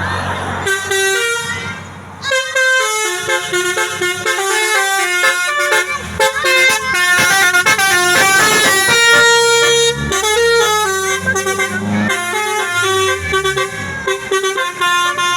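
Basuri tour bus's telolet horn playing a fast tune of short stepped notes, with a short break about two seconds in before the melody runs on.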